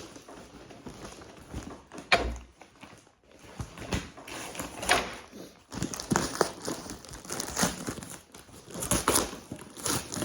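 Paper and plastic packing material rustling and crinkling as a parcel is unpacked by hand, in irregular bursts, with a sharp knock about two seconds in.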